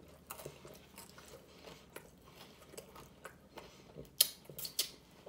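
Close-up mouth sounds of someone chewing a mouthful of food, soft wet clicks. About four seconds in come a few louder, sharper rustles as a paper napkin wipes the mouth.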